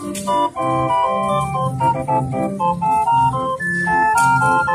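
Street organ playing a tune, its pipes sounding a melody over regularly repeating bass notes.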